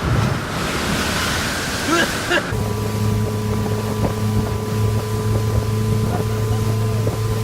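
Wind and water rushing, then from about two and a half seconds in the sterndrive engine of a 1987 Four Winns Sundowner running with a steady, even hum.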